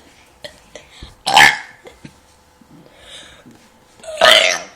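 A person burping twice: a short burp about a second in, and a longer burp with a wavering pitch near the end.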